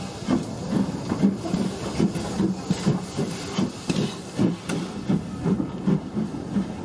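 Steam tank locomotive pulling its carriages slowly past, with a steady hiss of steam over an even beat of low chuffs and knocks, about two to three a second.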